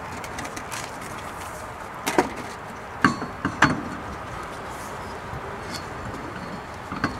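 A steel wheel and tyre being fitted onto a car's rear brake drum and wheel studs, with a few sharp knocks as it bumps and seats against the hub: one about two seconds in, two close together a second later, and one near the end.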